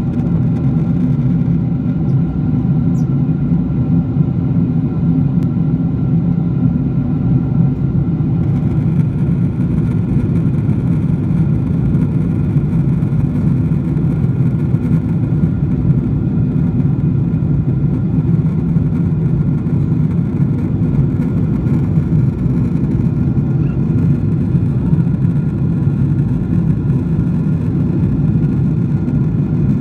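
Steady drone of an airliner cabin in flight: engine and airflow noise, mostly low, with faint steady tones above it.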